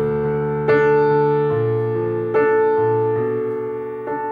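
Background music: a slow piano introduction, sustained chords struck about every second and a half over held bass notes.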